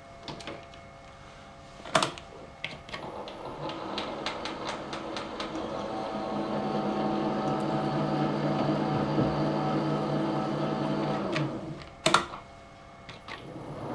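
Machine spindle motor running at low speed, driving a tap into the aluminium housing to cut a thread for an insert. A sharp click about two seconds in, a steady hum from about four seconds in that stops near eleven seconds, then another loud click.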